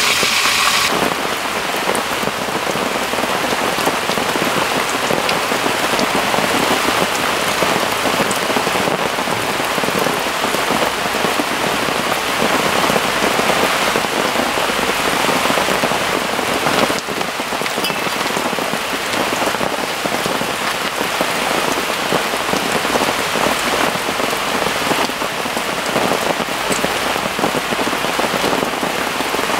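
Heavy rain pouring down steadily, a dense, even patter of drops.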